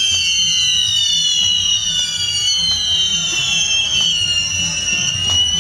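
Firework fountains spraying sparks and whistling, several high shrill tones at once that slowly fall in pitch, with a few scattered pops over a low rumble.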